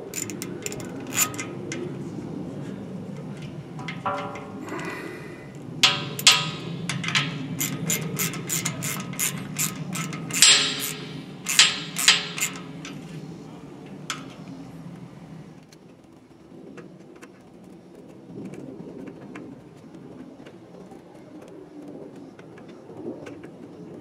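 Screwdriver and wire terminals clicking and tapping against the metal terminal screws of an air compressor pressure switch as the wires are fastened. There is a quick run of sharp clicks in the middle, then it goes quieter.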